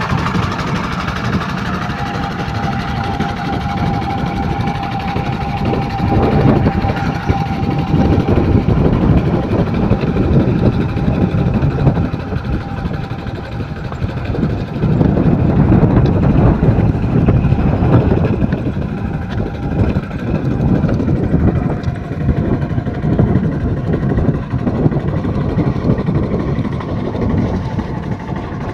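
Single-cylinder engine of an old walk-behind hand tractor running continuously as it works a flooded, muddy rice paddy, its level swelling and easing at times.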